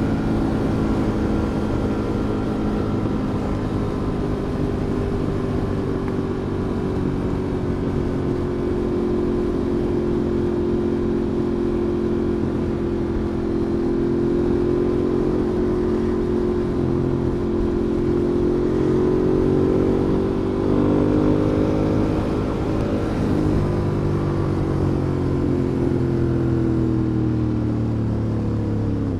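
Ducati Monster 821's 821 cc L-twin engine running at a steady cruising pace, heard from the rider's seat. The revs rise briefly about two-thirds of the way through, then the engine note drops off suddenly at the very end as the throttle closes.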